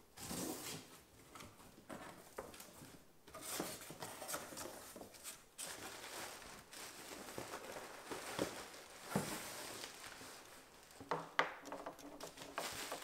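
Cardboard box and plastic packing wrap being handled while unpacking: irregular rustling and crinkling with scattered light knocks.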